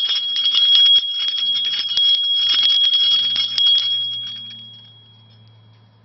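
Small 3 cm metal bell with a leaf-shaped pendant on its clapper, the clapper striking rapidly over and over with one high ringing tone. The ringing stops being struck about four seconds in and dies away.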